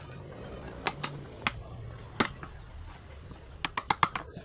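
Sharp light taps and clicks of hard objects: a few spread apart, then a quick run of about five near the end.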